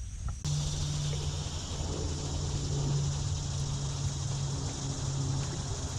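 A steady low mechanical hum, like a motor running, under an even hiss. It starts abruptly about half a second in.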